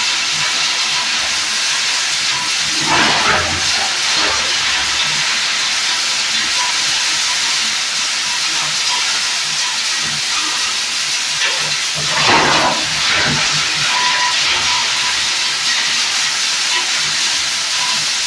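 Plastic lumps grinder running, giving a loud, steady hissing whirr. There are two heavier surges, about three seconds in and again about twelve seconds in.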